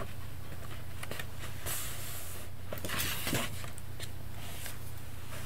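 Paper pages of a bullet journal being turned and smoothed flat by hand: two brief papery rustles, about two and three seconds in, with a few light taps, over a steady low hum.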